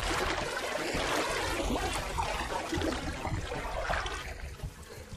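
River water splashing and sloshing against the side of a boat as a piraiba catfish is released by hand; the splashing dies down near the end.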